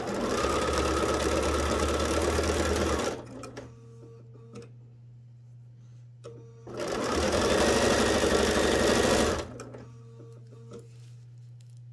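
Bernina sewing machine stitching lace down onto a padded quilted panel, running steadily in two spells of about three seconds each with a pause of a few seconds between them.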